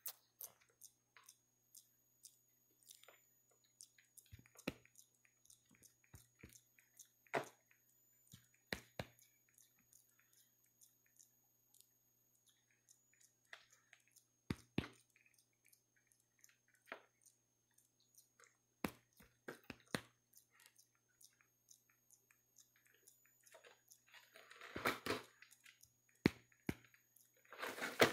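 A macaque monkey chewing and tearing at a cardboard box: scattered crackles and clicks of cardboard. Near the end there are two louder stretches of rustling and scraping as the monkeys grab and drag the box.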